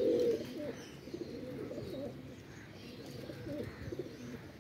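A flock of domestic high-flyer pigeons cooing, several calls overlapping, with the loudest coo right at the start.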